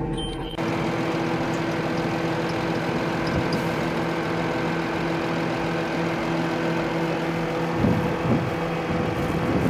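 Case IH Puma 240 tractor's six-cylinder diesel engine running steadily, starting abruptly about half a second in.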